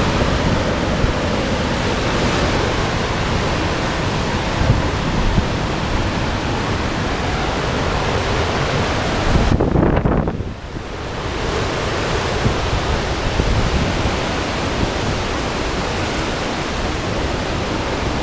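Hurricane-force wind and driving rain rushing steadily, with a brief dip about ten seconds in.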